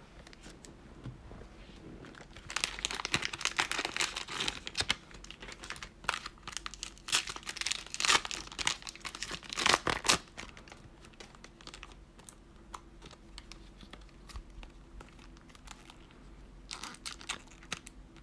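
Foil trading-card pack wrapper being torn open and crinkled by hand, with the loudest tearing bursts in the first half. After that, quieter rustling as the cards are handled.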